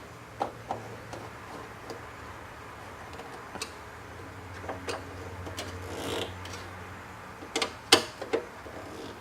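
Scattered light clicks and metal knocks from a replacement power supply being screwed into a desktop PC case with a Phillips screwdriver, with a cluster of sharper knocks near the end, over a steady low hum.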